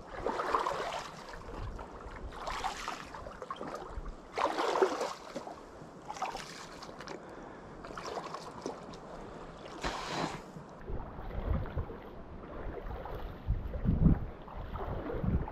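Footsteps wading through shallow swamp water, each stride a splash and slosh about every two seconds. Near the end the sound turns duller, with low rumbling bursts of wind on the microphone under the splashing steps.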